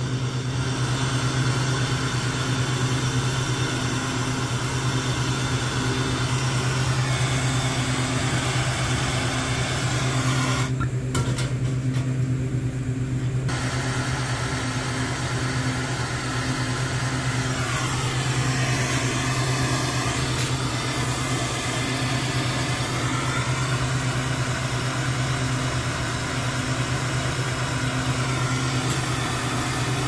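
Hand torch hissing steadily as it heats a copper drain-line joint for soldering, over a steady low hum. The hiss drops out for a couple of seconds about eleven seconds in.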